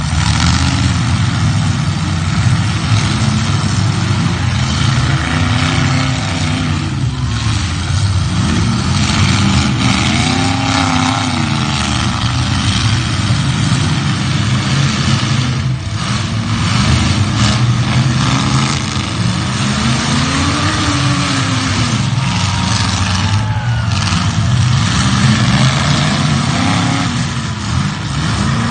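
Demolition derby car engines running hard, revving up and falling back again and again in repeated rising and falling sweeps.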